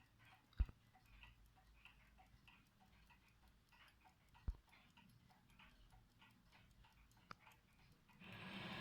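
Faint, steady ticking of a ship's bell clock's mechanical movement, about three ticks a second. Three single sharp clicks stand out over it, and a brief louder noise begins near the end.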